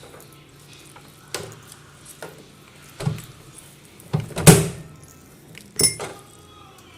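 Kitchenware being handled while a cup of lemon tea is made: a few separate knocks and clinks, the loudest about four and a half seconds in.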